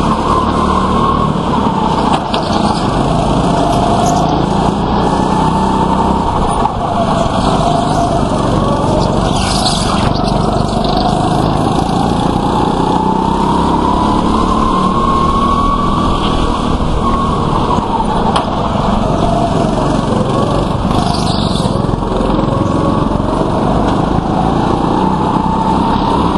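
Indoor rental go-kart engines running hard at racing pace, heard from the driver's seat: the engine note rises and falls again and again in slow sweeps with the throttle, with other karts running close by. Two short hissy bursts break in, one near the middle and one about three quarters through.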